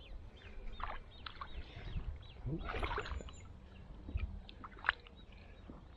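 Lake water sloshing and splashing as a caught carp is taken back into the margin and released, with a few sharper splashes. Small birds chirp repeatedly in the background.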